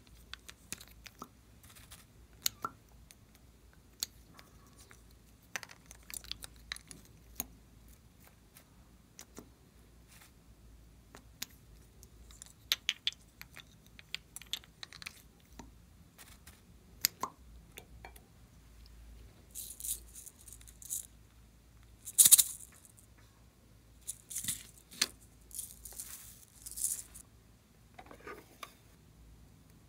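Small plastic bottles and containers handled over a glass bowl: scattered light clicks and taps of plastic, with louder rustling, hissy bursts in the second half.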